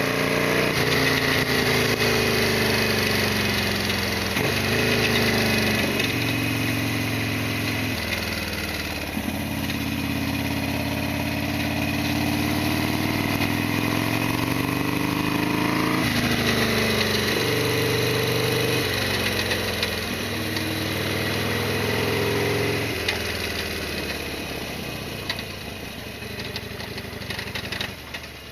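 Harley-Davidson Sportster XL1200R's air-cooled 1200 cc V-twin engine running under way, its revs climbing and dropping several times as the gears are changed, easing off near the end.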